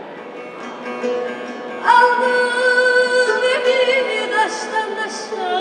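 A woman singing a folk song to bağlama (long-necked lute) accompaniment. The plucked lute plays alone at first, then her voice comes in about two seconds in on a long held note that breaks into ornamented turns.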